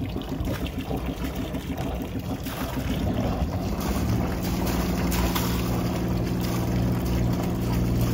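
Yacht's inboard diesel engine idling with a pulsing exhaust beat, then revved about three seconds in to a louder, steadier running note. Cooling water splashes from the stern exhaust outlet into the sea, a sign that the raw-water cooling is working.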